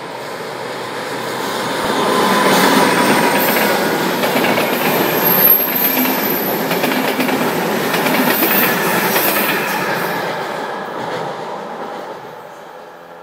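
Passenger train passing close by: wheels clattering over the rails with a high squeal from the wheels, building over the first couple of seconds, holding loud, then fading away near the end.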